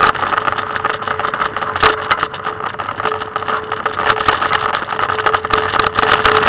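Trikke three-wheeled scooter rolling along, its wheels and frame giving a continuous rattling clatter, with a faint steady hum that comes and goes.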